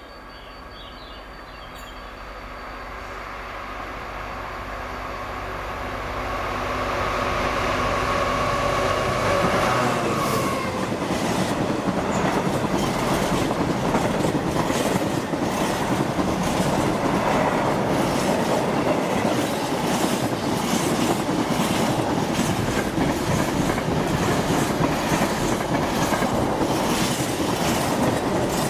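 Freight train passing: the locomotive's engine grows louder as it approaches, its pitch drops as it goes by about ten seconds in, then the wagons follow with a steady rattle and clickety-clack of wheels on the track.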